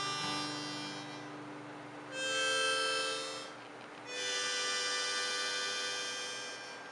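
Harmonica playing two long held chords, the first about two seconds in and the second about four seconds in, over a fading steel-string acoustic guitar: the closing notes of a folk song.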